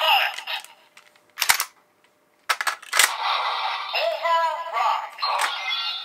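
Kamen Rider Vulcan transformation toy sound effects. A Progrise Key's electronic voice finishes calling "Assault Bullet!", then sharp plastic clicks come at about a second and a half and again near three seconds as the key is worked and slotted into the Shotriser. Then an electronic voice announces "Overrize" over a synthesized standby tune.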